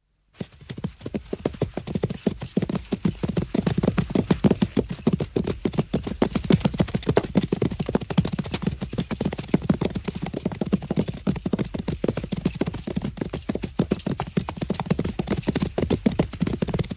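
A fast, unbroken run of short knocks, many a second, sounding like clip-clop. It starts abruptly and cuts off suddenly.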